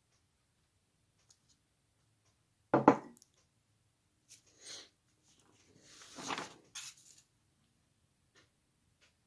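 A person coughs once, sharply, about three seconds in, followed by quieter breathy throat sounds, the longest swelling and fading around six seconds in.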